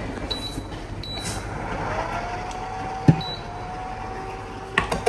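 Electric induction hob's touch controls beeping three times, short and high, as it is switched on. About two seconds in the hob starts running with a steady tone. A knock comes about three seconds in and a few taps near the end.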